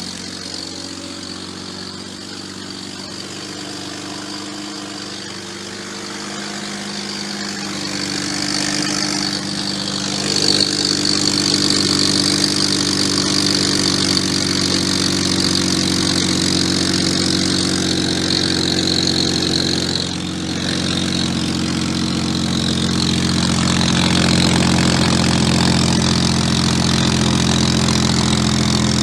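BMW 135i's N54 twin-turbo inline-six idling steadily with an exhaust leak at the gap where the mid pipe meets the axle-back. About ten seconds in the sound gets louder and a high hiss comes in, rising again near the end.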